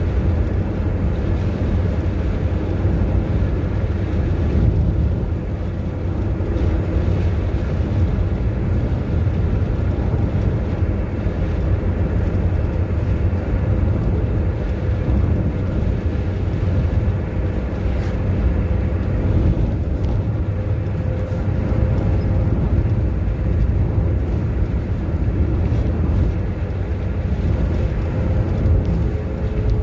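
Steady low rumble of a car driving at highway speed, heard from inside the cabin: engine and tyre noise.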